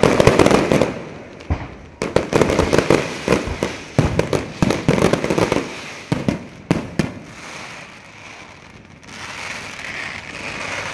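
Fireworks going off in dense volleys of bangs and crackling, coming in clusters about every second or two, then thinning out after about seven seconds to a softer, steady noise.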